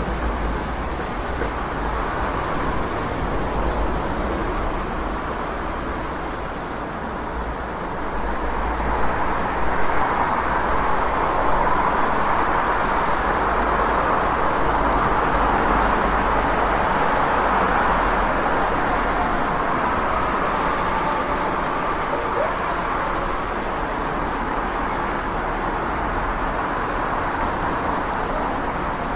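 City street traffic noise: a continuous wash of passing vehicles with a low rumble underneath, swelling louder about a third of the way in and easing back down later.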